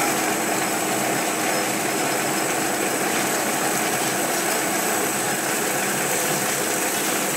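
Double-layer cast stretch film machine running in production: a steady mechanical hum and whir with a constant high whine over it.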